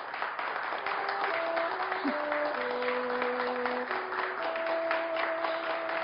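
Audience applauding steadily. About a second in, a slow music melody of long held notes starts over the clapping.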